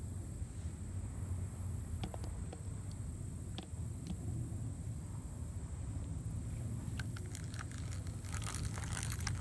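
Steady low wind rumble on the microphone, with a few small isolated clicks. From about seven seconds in, a run of crackling, rustling clicks as the phone is handled and moved.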